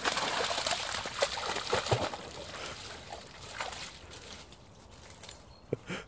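Golden retriever puppy splashing and sloshing through a shallow stream, loudest in the first two seconds or so and dying away as it climbs out onto the bank. A short knock near the end.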